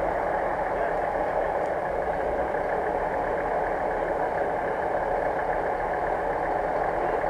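Off-road 4x4 engine idling steadily.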